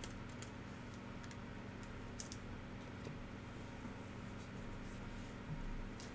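Bowman's Best chromium baseball cards being flipped through by hand: scattered soft clicks and slides of card against card, over a steady low hum.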